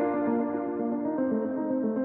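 Instrumental background music, a steady run of held notes stepping from one pitch to the next.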